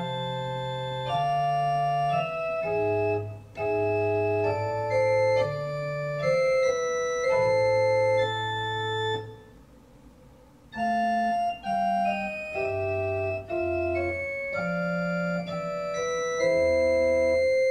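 Organ playing a slow passage of sustained chords over low bass notes, each chord held steady and then moving to the next; the sound breaks off for about a second just after the middle before the playing resumes.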